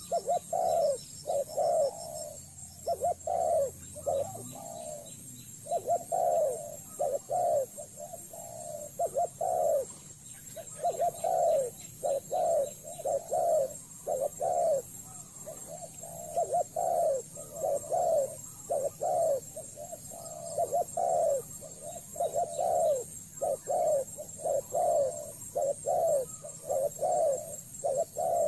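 Spotted dove cooing over and over, a long series of low, rounded coos in short phrases with brief pauses between them.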